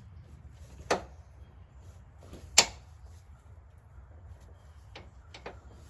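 Ratchet wrench clicking on a power steering line fitting: two sharp single clicks about a second and a half apart, then a few faint ticks near the end. The ratchet gets only a couple of clicks per swing in the cramped space.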